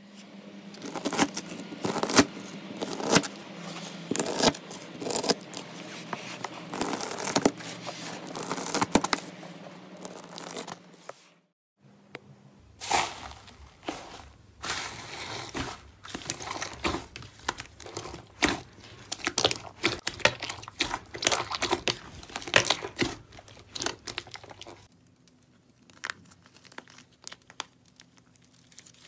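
Slime handled by hand at close range. First, bead-filled crunchy slime gives a dense, continuous crackling. After a short break comes the sticky tearing and clicking of fluffy slime being pulled apart. Near the end there are quieter crackles as a dried clay crust on the slime cracks under squeezing.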